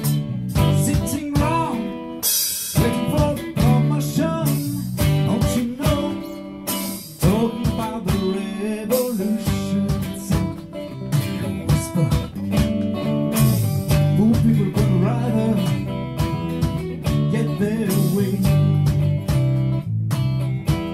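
Guitar-led pop band music with a steady drum beat.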